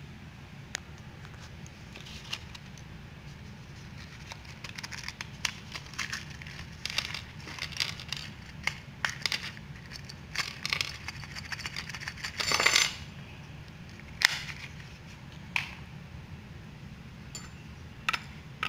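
Small black metal screws and L-brackets clattering onto a wooden board as they are tipped out of a small box: a run of light clicks and clinks from about four seconds in, loudest in a short rattling burst near thirteen seconds, then a few single clinks.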